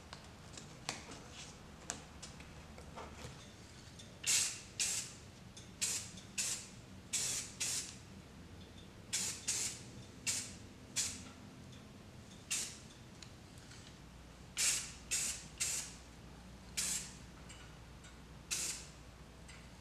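Aerosol spray paint can spraying in a series of short hissing bursts, starting about four seconds in, sometimes about two a second.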